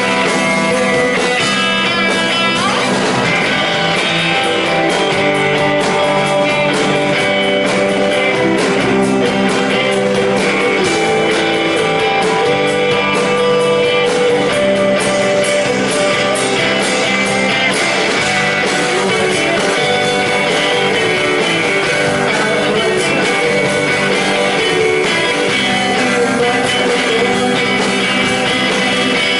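Live rock band playing, with guitars prominent over a steady, loud, sustained instrumental passage.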